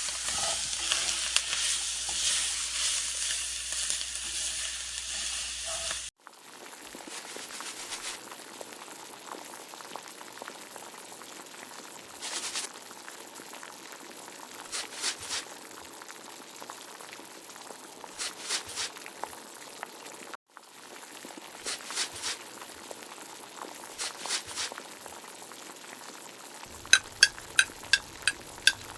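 Potatoes and okra sizzling as they fry in oil in a pan, loud at first, then after a cut a quieter sizzle with groups of stirring strokes every few seconds. Near the end, a quick run of about six sharp ringing taps.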